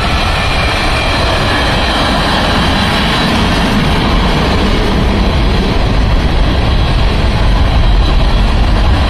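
Freight cars of a mixed freight train rolling past: a loud, steady rumble of steel wheels on the rails.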